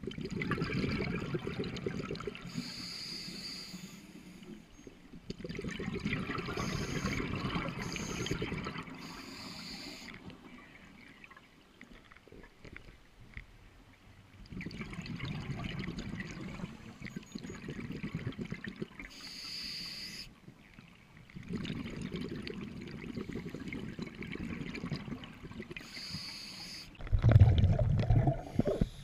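Scuba diver breathing through a regulator underwater: four long stretches of exhaled bubbles, each followed by a short high hiss of the regulator on the inhale. A louder low thump comes near the end.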